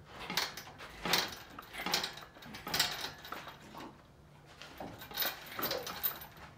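Irregular metal clinks and knocks of tools and hardware being handled, roughly one a second, with a quieter gap a little past the middle.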